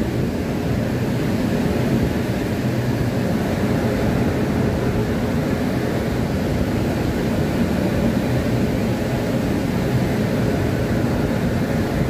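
Steady low rumble of a goods train rolling past, even throughout with no distinct wheel clacks.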